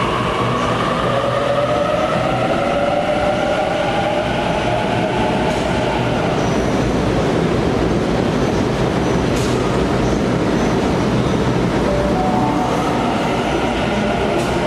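A train running with a steady, loud rumble. A whine falls in pitch over the first few seconds, then rises again about twelve seconds in.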